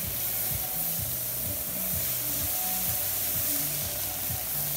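Steady hiss of a garden hose's spray nozzle washing down an elephant. Low tones shift in pitch underneath.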